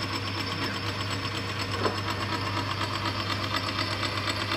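Boxford Model A lathe running under power crossfeed, with the lead screw turning. Its very noisy change-gear train gives a steady rapid clatter over a low hum, with one short click a little under two seconds in. The owner has found no missing teeth in the gears.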